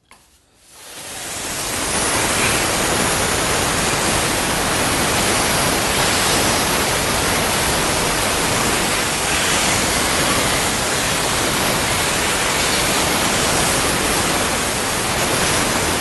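Steam jet hissing steadily from a Jetvac Major steam vacuum cleaner's hand tool as it blasts an air-conditioning coil's cooling fins. It swells in over the first couple of seconds and then holds loud and even.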